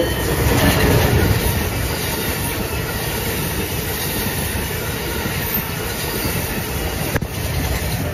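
Amtrak Acela Express high-speed trainset passing close by at speed: a steady rush of wheel and air noise with wheel clatter on the rails, and a single sharp click near the end.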